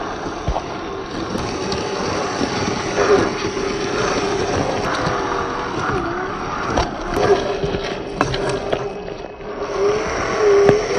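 Traxxas TRX-4 1/10-scale RC crawler driving off-road. Its electric motor and gearbox whine at a steady pitch that dips and rises briefly with the throttle, with scattered knocks and clicks as it goes over rough ground.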